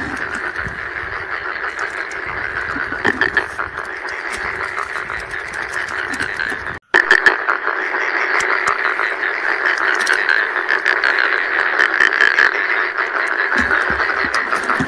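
A dense chorus of rice-paddy frogs calling, many overlapping voices in a steady mass of sound that drops out for a split second about seven seconds in.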